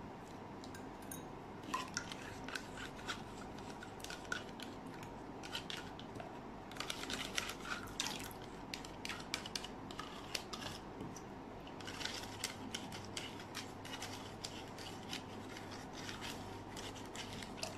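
Sour yogurt being scraped out of small plastic cups into a bowl of water with a wire whisk. The whisk scrapes and clicks against the cup in bunches of short strokes, with a few soft drips.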